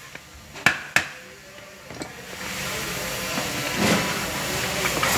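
Two sharp metallic taps of a hammer on a thin punch driven into a seat-belt retractor, knocking loose the gears inside, followed by a softer tap. After that a steady hiss-like noise rises and holds.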